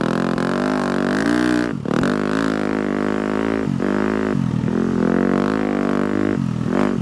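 250cc four-stroke dirt bike engine under way, its pitch rising and falling with the throttle and dropping sharply several times as the throttle is chopped.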